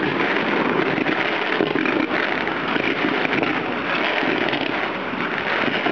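Low-level fireworks, ground fountains and bursts, going off in a dense, continuous crackle of many small pops.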